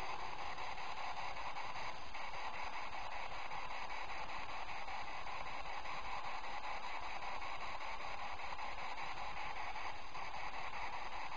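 Spirit box (radio-sweep ghost box) giving out steady radio static hiss, faintly chopped in a fast, even flutter as it scans through stations.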